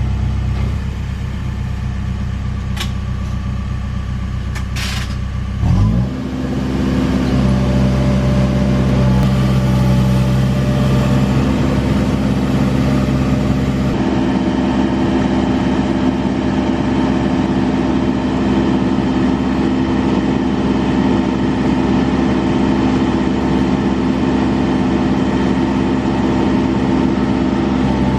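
Diesel engine of a Case 580 Super N backhoe loader running slowly, then revving up sharply about six seconds in and holding at a higher working speed. Two short clicks are heard before the rev-up.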